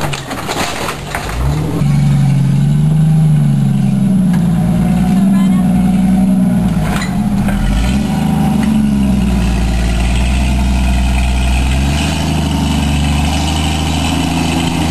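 Jeep engine running under varying throttle, its pitch rising and falling over several seconds. It comes in strongly about two seconds in.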